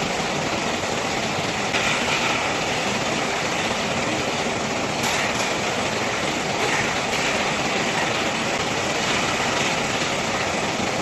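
Steady, even running noise of a bag palletizing line: powered roller conveyors and a palletizer robot working continuously.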